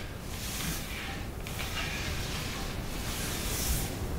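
A few faint swishes of a paint roller being rolled over the flat top of a wooden unit, over soft room noise.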